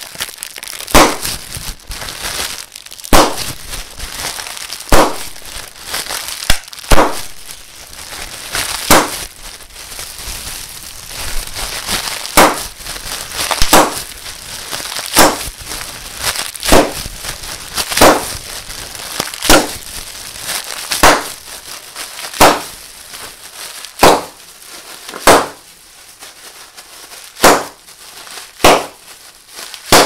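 Bubble wrap being crinkled, with single bubbles popping sharply about every second and a half over the continuous crackle of the plastic. The crinkling grows quieter in the last part, leaving the pops more separate.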